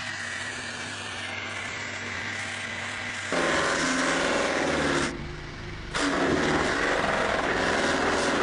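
Electric power tool running with a steady hum. From about three seconds in it gets much louder and rougher, drops back briefly near five seconds, then loud again: the tool working the steel in passes.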